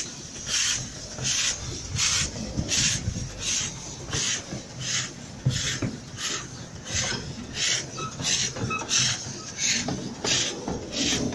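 Miniature steam locomotive chuffing: sharp puffs of steam exhaust about every two-thirds of a second, quickening to about two a second as the train gathers speed. Underneath is the low rumble of the carriage running on the rails.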